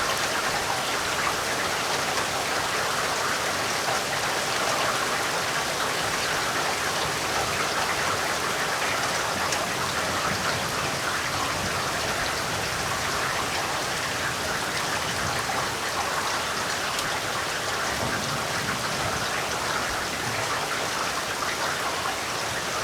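Heavy rain falling steadily, a dense even hiss of many drops hitting a surface.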